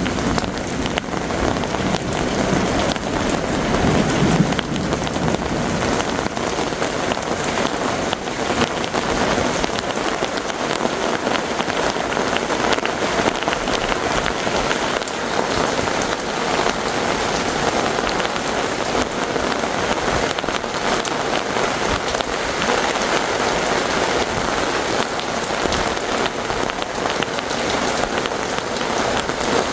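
Heavy rain pouring steadily, drops pattering on surfaces, with a low rumble of thunder in the first few seconds.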